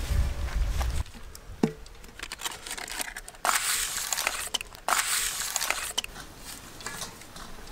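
Butter wrapper paper crinkling and rubbing against a large aluminium cake pan, with fingers smearing butter over the metal to grease it, in bursts of rustling, the loudest a few seconds in. A low rumble stops about a second in.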